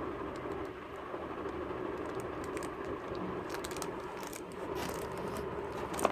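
Handling noise while unboxing a laptop: scattered light clicks and rustles over a steady background hum, with one sharper click near the end.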